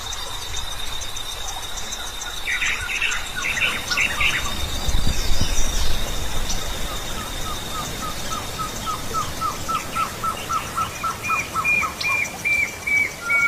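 Birds calling in subtropical forest over a steady, high, pulsing insect trill. Partway through, one bird starts a long run of short repeated notes, joined near the end by a higher repeated call. A brief low rumble comes about five seconds in.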